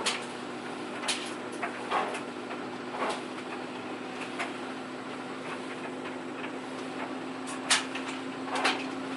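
Scattered clicks and rustles from laundry and household items being handled, over a steady hum from a running appliance. The loudest click comes near the end.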